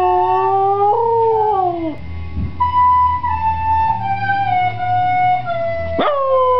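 A small dog howling along to a recorder. One long wavering howl slides downward over the first two seconds, recorder notes follow, and a new howl starts with a quick upward swoop about six seconds in, then falls slowly.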